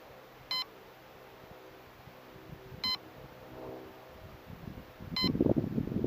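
Short electronic beep repeating about every two and a half seconds, three times. About five seconds in, a loud rough rushing noise starts.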